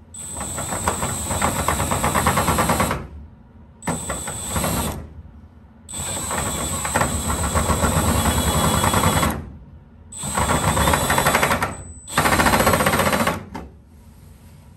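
Milwaukee cordless drill turning a step drill bit that enlarges a hole in thin aluminium fuselage skin. It runs in five bursts with short pauses, a high motor whine over a fast rattle of the bit cutting the metal.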